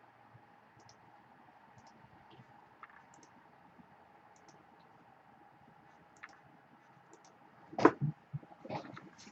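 Sparse, faint computer mouse clicks over a low steady hum, then a louder burst of handling noise about eight seconds in.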